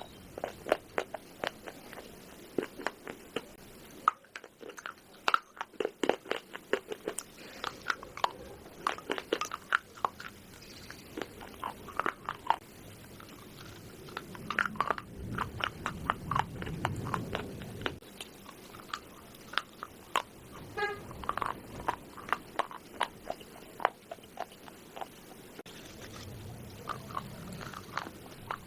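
Close-up crunching of a person biting and chewing pieces of baked clay pot: sharp, irregular crunches in bunches, with short pauses between bites.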